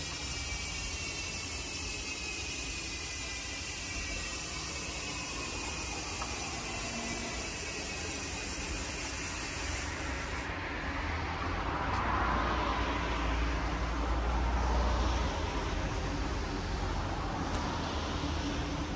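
Mountain bike rear hub's ratchet buzzing as the wheel spins freely, its pitch falling slowly as the wheel slows. About ten seconds in the sound turns duller, with a low rumble underneath.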